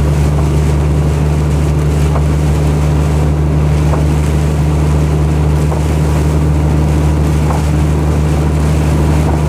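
Steady low engine and road drone inside a moving vehicle's cab, unchanging throughout.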